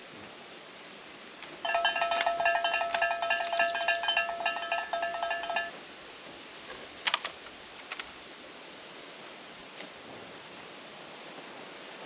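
Rapid jingling bell sound effect for about four seconds, then a few sharp clicks around the middle.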